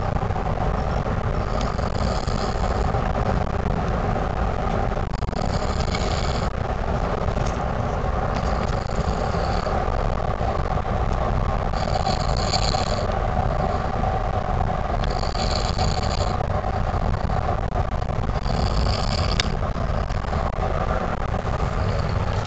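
A sleeping man snoring through an open mouth, a hissing breath about every three seconds, over the steady road noise inside a moving car.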